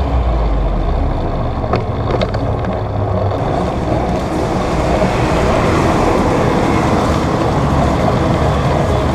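Steady wind rush and rolling noise on a bicycle-mounted camera while riding, with a heavy low rumble in the first few seconds.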